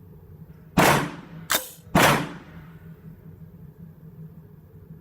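Black Rain Ordnance Fallout 15 AR-15 rifle firing 5.56 rounds: two loud shots about a second in and two seconds in, each with a ringing tail, and a shorter, sharper crack between them.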